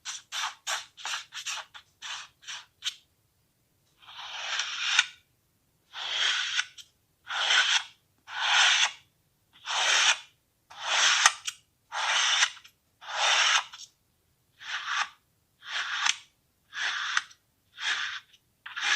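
Kinetic sand being cut, each cut a scraping hiss: a run of about nine quick short strokes over the first three seconds, then, after a brief pause, slower, longer slicing strokes of nearly a second each, about one a second.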